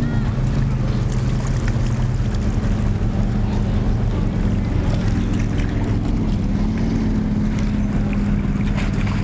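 Motorboat engine running steadily close by, its low hum shifting slightly in pitch about six seconds in.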